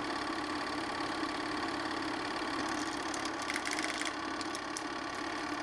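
8mm film projector running with a steady mechanical hum and clatter. A short run of rapid ticking comes between about two and a half and four seconds in.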